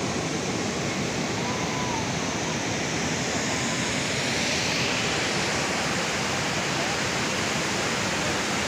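Steady rushing of a small waterfall pouring into a river pool.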